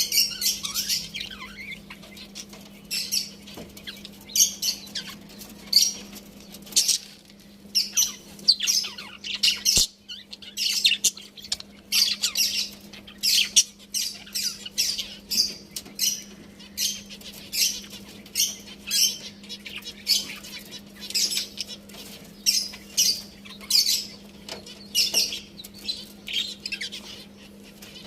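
Budgerigars chirping and squawking in quick runs of short, high-pitched calls with brief pauses, over a steady low hum.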